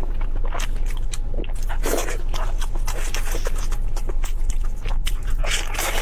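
Close-miked eating: irregular crunchy bites and chewing, the strongest about two seconds in and near the end, over a steady low hum.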